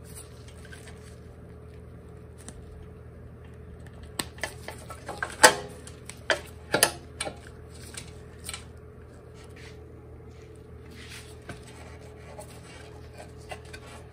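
Electric-bike wiring connectors being plugged into a controller by gloved hands: plastic plugs clicking and knocking together and cables rubbing. The clicks are scattered, the loudest about five to seven seconds in, over a steady faint hum.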